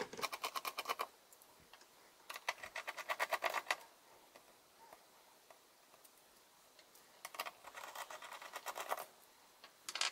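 A small screwdriver backs screws out of the GK Mini mini PC's plastic base, making faint, rapid, evenly spaced clicking in three spells of one to two seconds each, with a short tick at the very end.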